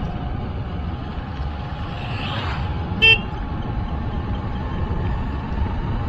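A vehicle horn beeps once, short and sharp, about three seconds in, over a steady low rumble of road and wind noise from the ride.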